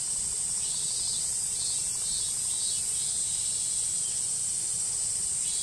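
Cicadas droning in a steady, high, unbroken chorus, with a fainter pulsing insect call under it in the first few seconds.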